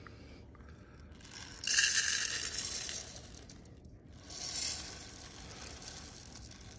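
Dry brown rice pouring from a plastic jar into a plastic measuring cup, the grains rattling. The pour is loudest from about two to three seconds in, with a second, smaller surge near five seconds.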